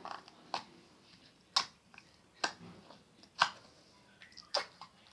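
Scented slime being squeezed and pressed by hand, making short sharp pops, about six in all, spaced roughly a second apart.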